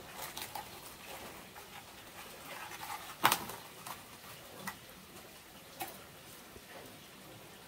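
Open wood-and-bamboo cooking fire crackling with scattered irregular pops, one sharp loud pop about three seconds in.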